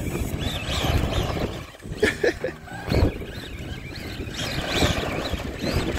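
Traxxas Stampede VXL radio-controlled monster truck driving, its brushless Velineon electric motor and tyres running with the level rising and falling as the throttle changes, with louder surges about two and three seconds in.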